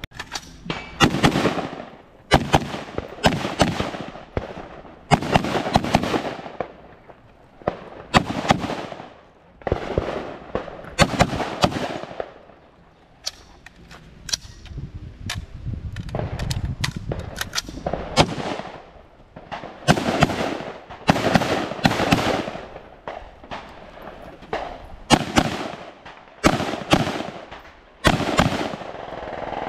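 Rifle gunfire: a long, irregular string of shots, mostly about a second apart with some quicker pairs, each followed by a short echo trailing off.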